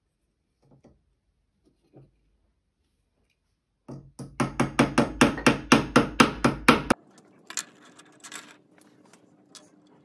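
Hammer tapping rapidly, about four to five blows a second for some three seconds, driving aluminium square tubing into 3D-printed plastic connectors. The tapping stops abruptly.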